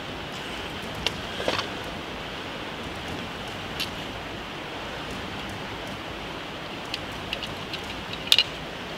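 Steady rushing hiss of flowing river water, with a few light clicks and taps scattered through it, the sharpest a little past eight seconds in.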